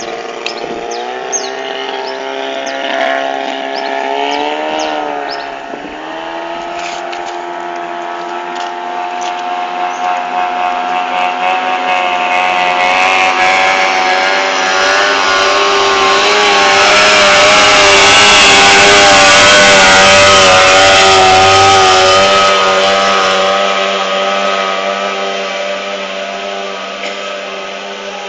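Outboard engine of a tunnel-hull racing boat running, its pitch rising and dipping briefly a few seconds in, then growing steadily louder to a peak about two-thirds of the way through before easing off.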